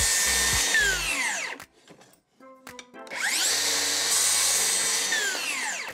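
DeWalt Flexvolt DCS575 cordless circular saw cutting through a board, in two runs: the first ends about a second and a half in, and the second starts with a rising whine about three seconds in. Each run ends with the whine falling as the blade winds down.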